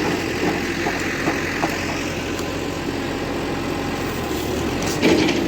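Concrete pump machine's engine running steadily, with a few faint ticks and one louder knock about five seconds in.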